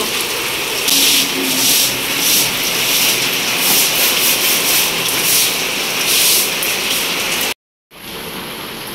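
Heavy rain pouring on an open courtyard, with rhythmic swishes of a floor wiper and broom pushing rainwater across the wet floor, roughly one and a half strokes a second. After a brief drop-out near the end, only steady rain is heard.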